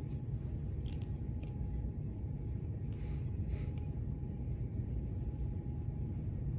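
Steady low rumble of room noise with a faint steady tone, and a few faint clicks and taps as metal altar vessels, a ciborium and chalice, are handled and set down.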